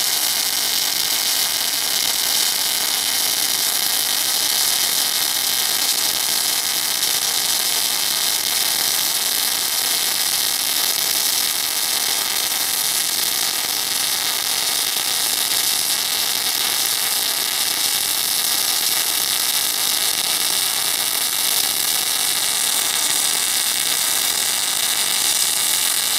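Semi-automatic MIG/MAG welding arc running with a steady crackle as the torch is drawn along a continuous 10 mm fillet weld, the machine set to a high wire feed and high current.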